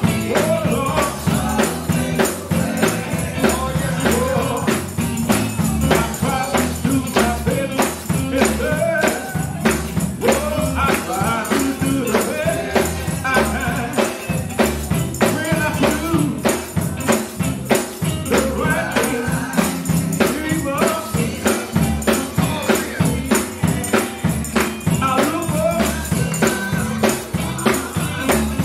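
Church choir singing an up-tempo gospel song, with a tambourine keeping a steady beat.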